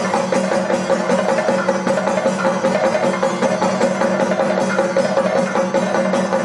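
Thayambaka ensemble of Kerala chenda drums played with sticks: a fast, dense, unbroken stream of drum strokes with a steady ringing underneath.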